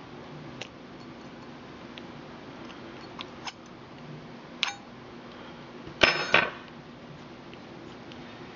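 Knife blade tip working a small screw out of an aluminium dock's base: sparse small metallic clicks and scrapes, with a louder pair of ringing metal clinks about six seconds in.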